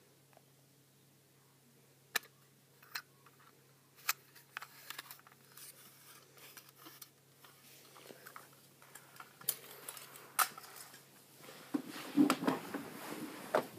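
Scattered clicks and knocks of hard plastic toys being handled, growing busier near the end. About twelve seconds in there is a louder burst of knocking and rumbling as the toy van is gripped and pushed along the floor.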